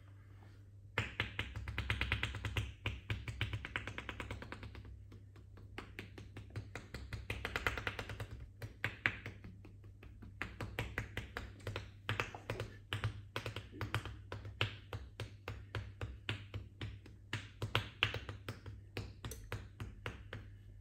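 Percussive massage on a person's back with the palms pressed together, prayer-hand chopping, making sharp clapping taps. It comes in two rapid runs of strikes in the first half, then slower, separate strikes.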